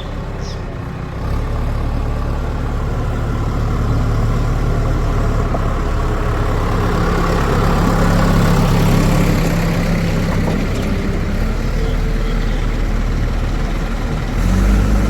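Heavy diesel engine running steadily, louder about a second in and rising again near the end.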